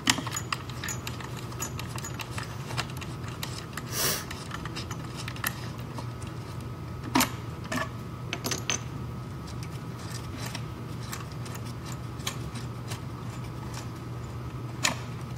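Scattered light clicks and knocks, with a short scrape about four seconds in, as the long nose is worked off a Lagler Flip floor edger by hand after its belt-tensioning eccentric has been loosened. A steady low hum runs underneath.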